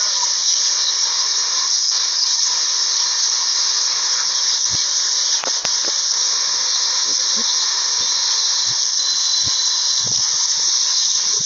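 Steady, loud hiss, with a few faint clicks and soft knocks in it.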